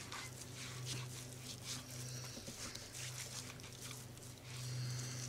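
Hands rubbing a dry spice rub into a raw pork shoulder on a wooden cutting board: faint soft patting and squishing of meat, over a steady low hum.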